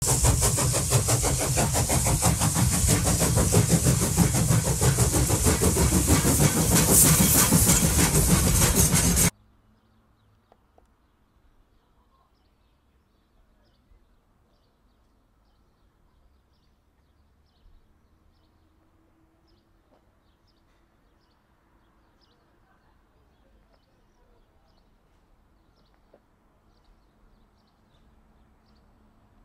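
A loud, dense train sound effect for about nine seconds, which cuts off abruptly. Near silence follows, with only faint clicks and a faint low hum.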